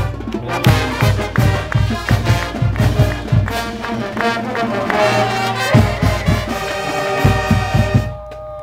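College marching band playing a brass tune with trumpets and sousaphones over a steady drum beat; the music stops sharply near the end.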